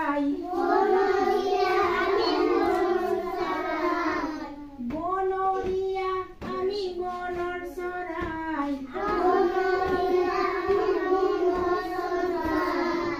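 A group of young children singing an Assamese Jyoti Sangeet song together, in long held phrases with short breaks between them.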